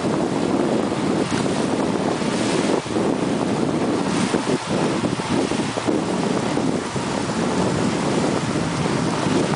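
Steady wind noise buffeting the microphone over the rush of choppy sea water around a boat.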